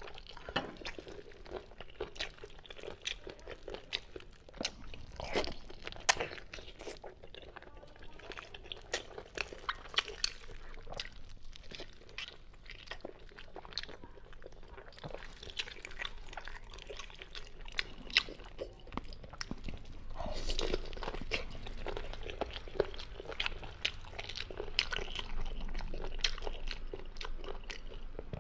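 Close-miked eating: biting and chewing braised meat with many sharp crunches and mouth clicks, busier and louder in the last third.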